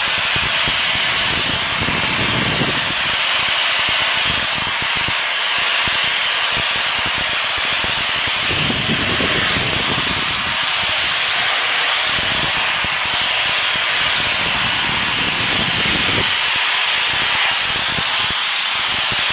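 Pressure washer spraying a jet of water against a rough concrete wall: a loud, steady hiss, with a low rumble coming and going a few times.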